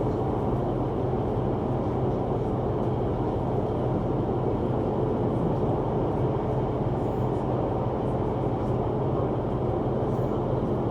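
Steady low rumble with a constant droning hum from a moving vehicle, evenly sustained without breaks.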